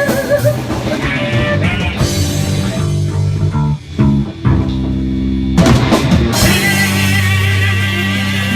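Rock music with electric guitar and drums playing from a jukebox, with a brief drop about four seconds in.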